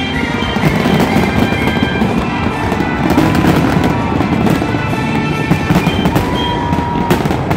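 Fireworks display at close range: a dense, continuous barrage of bursts and crackling with no pause.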